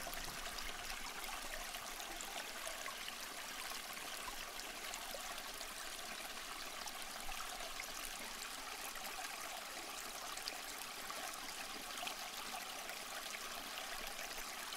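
Faint, steady sound of small ripples lapping at the pond's edge, an even hiss with fine splashy specks and no change throughout.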